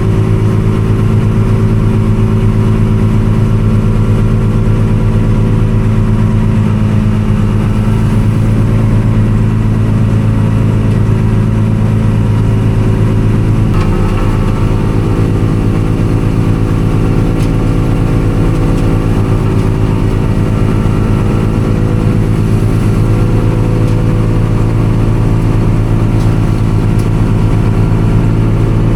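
Engine of a farm machine running steadily at a constant speed, with a brief change in its note about halfway through.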